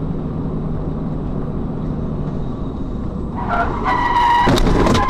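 In-car dashcam audio of road and engine noise, then, about three and a half seconds in, a loud high-pitched squeal lasting about a second and a half, typical of tyres skidding as the car brakes hard to avoid hitting the car in front.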